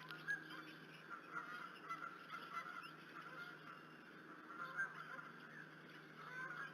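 Faint outdoor ambience: a steady low hum under scattered short, faint calls, which the nest-cam's watcher cannot place and likens to the plopping of a fish-pond pump.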